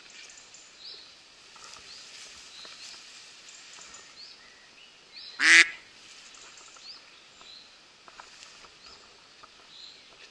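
A single short, loud pitched call about halfway through, over faint scattered bird chirps.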